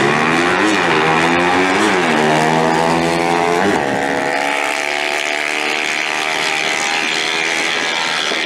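Motorcycle engines accelerating hard in a drag race. The pitch climbs, drops briefly as gears are shifted about half a second and two seconds in, then climbs again. A few seconds in the sound changes to a steadier, fainter high-pitched run as the bikes head down the strip.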